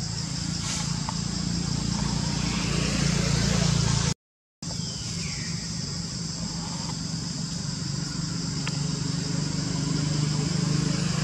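Steady low engine-like hum under a constant high-pitched buzz of insects. The sound cuts out for a moment about four seconds in.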